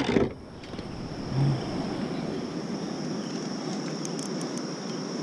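Crickets chirring in one steady high tone over a low, even outdoor rush, with a short low hum about one and a half seconds in.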